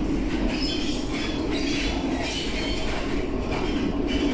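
Rail shuttle train carrying road coaches running, heard from inside its carriage: a steady rumble of wheels on track with a constant low hum and hiss.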